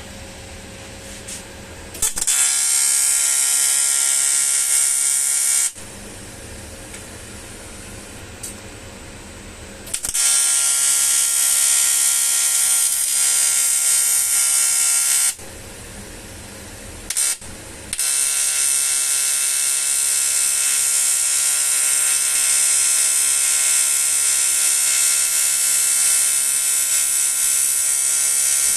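TIG (argon) welding arc buzzing on a cast aluminium alloy wheel, struck three times for long runs of several seconds with a brief blip between them.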